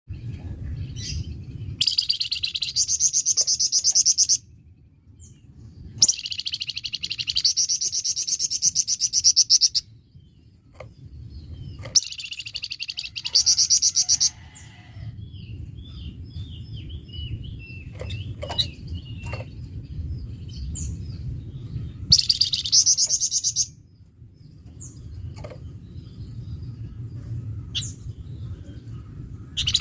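A flamboyan songbird singing in loud, harsh bursts of very rapid high notes, each about two seconds long (the bursts bird keepers call besetan). Softer scattered chirps and short falling whistles fill the gaps, over a steady low hum.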